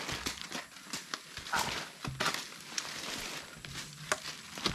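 Shovels and hoes chopping and scraping into soil while ground is levelled by hand. Irregular sharp strikes come roughly twice a second, with gritty scraping between them.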